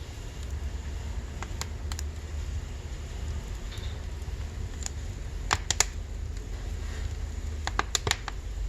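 Firewood burning in a wood stove: sharp crackles and pops over a low steady rumble, with a quick cluster of pops a little past the middle and another near the end.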